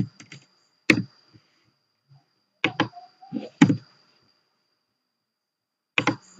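Computer keyboard keystrokes and mouse clicks, scattered at first, then a quick run of typing starting about six seconds in. A faint steady high-pitched whine sits underneath and drops out for a moment before the typing resumes.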